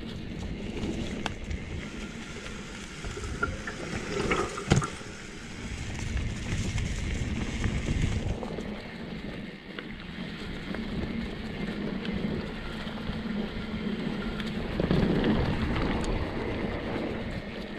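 Mountain bike descending a dirt singletrack: tyres rolling and scrubbing over dirt and the frame rattling, with a sharp knock about five seconds in, and wind rushing on the microphone.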